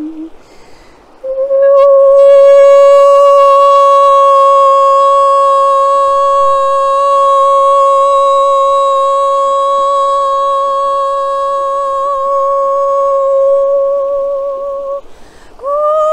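A woman's voice toning one long, steady note, held for about fourteen seconds with a slight waver near its end. A short breath comes before the note. After another breath near the end, the voice starts a new note sliding upward.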